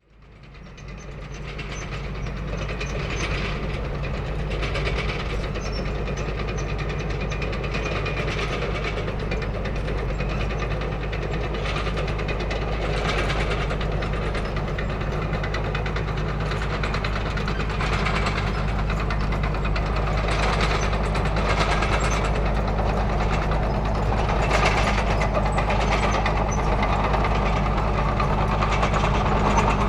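Heavy tracked vehicle on the move: a steady low engine drone under the rattling clatter of its metal tracks. It fades in over the first second or two, then holds steady.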